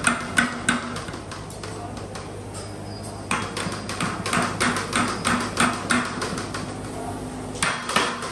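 Metal ladle knocking against a large stainless steel pot as cooked rice is stirred: quick, even clanks about three a second. They pause for about two seconds, start again, and come once more briefly near the end, over a steady low hum.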